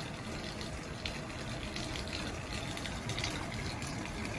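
Condensate water from a portable air conditioner being pumped out through a drain hose and pouring steadily into a pan. The unit's internal tank is nearly emptied.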